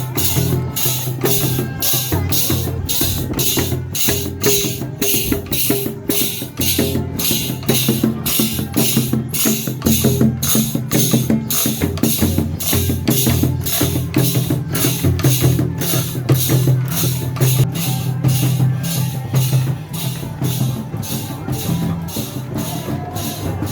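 Music with a steady percussive beat: a sharp high stroke about twice a second over low sustained bass notes.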